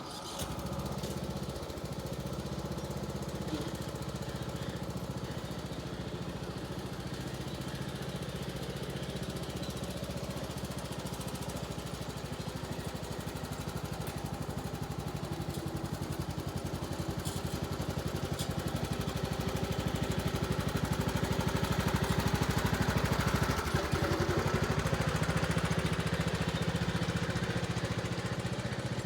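Riding lawn mower engine running steadily, getting a little louder past the middle and then easing.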